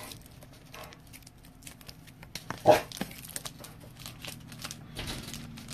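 Hard plastic card holders clicking and sliding on a table as cards are handled and set down. About halfway through there is one short, loud sound.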